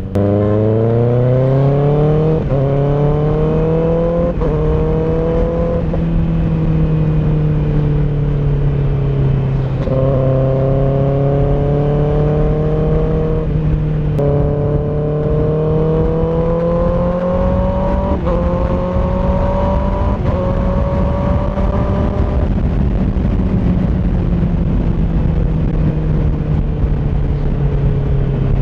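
Kawasaki ZX-6R inline-four through an M4 GP19 slip-on exhaust with its dB-killer insert, accelerating hard up through the gears: the engine note climbs and drops at each quick upshift, three shifts in the first six seconds. After a short ease-off it pulls up through more gears, then settles and slowly falls off in pitch near the end.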